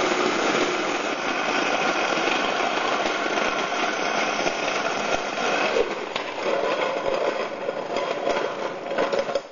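An electric kitchen machine's grain-mill attachment running, grinding spelt kernels into flour: a steady, loud mechanical grinding noise, switched off at the end.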